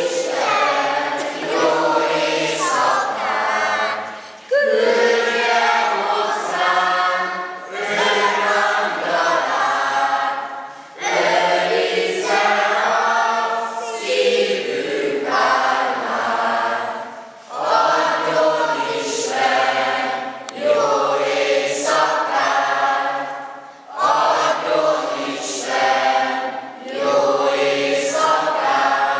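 A choir singing in phrases of about three seconds, with short breaks for breath between them.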